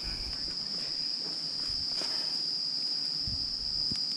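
Insects shrilling, one steady high-pitched tone that does not break, with a few low thumps near the end.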